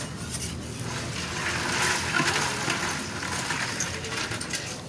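Cooking noise at an apam balik griddle: a rushing hiss that swells in the middle, with light clicks of metal utensils on the cast-iron pans and a steady low hum underneath.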